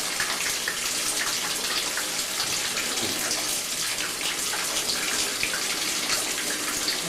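Tap running water steadily, with small splashes throughout.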